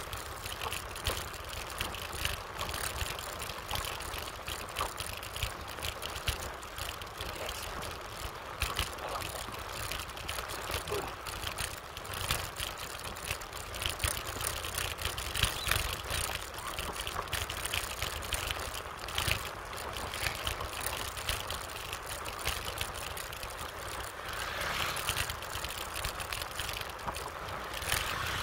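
Wind buffeting the handlebar-mounted microphone while riding, with a steady low rumble from the tyres on a ribbed concrete road.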